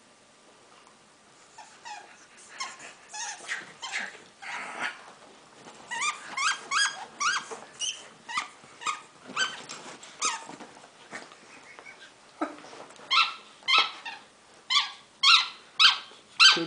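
A corgi making short, high-pitched squeaky yips and whines while mouthing a person's finger in play. The calls are sparse and faint at first, then come quicker and louder in the second half.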